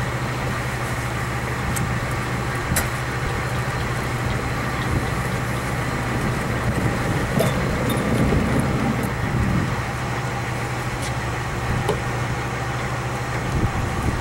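Tow truck's engine idling steadily, with a few light clicks and knocks.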